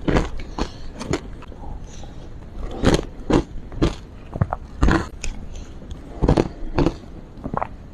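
Close-up biting and crunching of frozen matcha ice, a series of sharp, irregular crunches with short pauses between bites.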